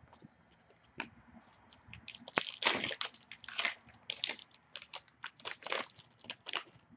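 Foil trading-card pack wrapper being handled and torn open: a quick run of crinkling crackles, densest from about two seconds in.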